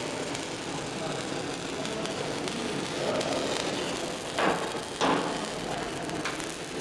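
Electric arc welding crackling and hissing steadily, with two sudden louder bursts about half a second apart a little past the middle.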